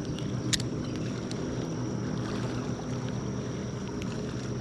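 Steady low hum of a boat motor, with a thin steady high whine above it and one sharp click about half a second in.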